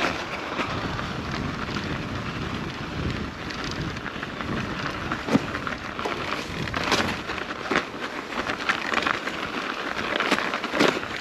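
Mountain bike being ridden over rough trail: a steady rumble and crackle of tyres on the ground, with scattered sharp rattles and knocks from the bike.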